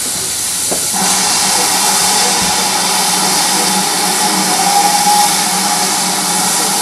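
Steam hissing steadily from a GWR Manor class 4-6-0 steam locomotive. The hiss starts suddenly about a second in, with a faint steady tone running through it.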